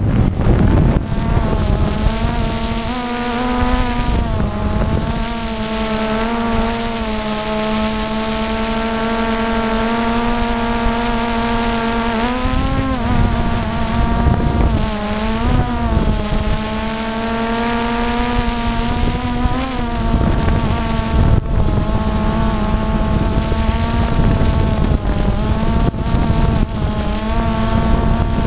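Quadcopter's electric motors and propellers whining close to the onboard camera. The pitch holds steady for long stretches and wavers up and down a few times as the throttle changes, over a low rumble on the microphone.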